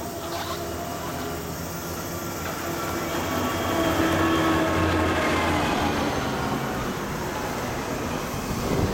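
Small Kawasaki KSR two-stroke single-cylinder engine running, its pitch rising and falling as the throttle is worked, loudest about four seconds in.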